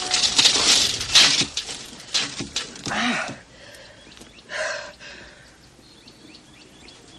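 A man's heavy, gasping breaths: a dense rush of breathy noise for the first second and a half, then several separate gasps a second or so apart, quieter after about three and a half seconds.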